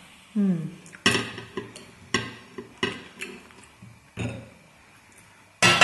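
Chopsticks and tableware clinking: a string of about seven separate sharp taps and knocks of utensils on plates and a glass bowl, with a louder knock just before the end. A short falling hummed voice sound about half a second in.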